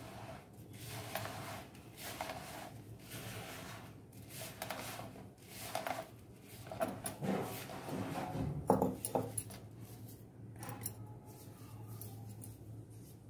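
Hands rubbing a dry, crumbly mix of flour, semolina, sugar and ghee between the palms in a plastic bowl, a rough rubbing that comes in repeated strokes about once a second. A few sharper clicks stand out about nine seconds in.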